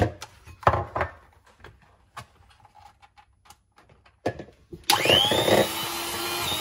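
A few clicks and knocks, then about five seconds in an electric hand mixer switches on, its whine rising as it spins up, and runs steadily with its beaters in butter and egg yolks.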